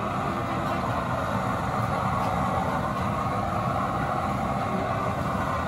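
Homemade blower-fed used-oil burner stove running at full flame: a steady, even noise of the blower fan and the burning oil.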